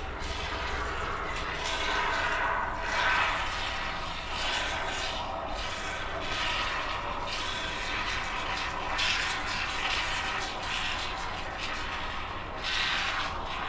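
Aerosol can of expanding foam spraying: a hiss that swells and fades as the foam is run along the inside edge of a glass terrarium.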